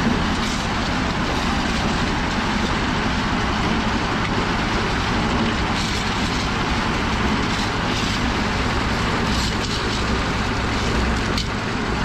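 Engine-driven drum concrete mixer running steadily at a pour, with a few faint scrapes and knocks of shovels and gravel.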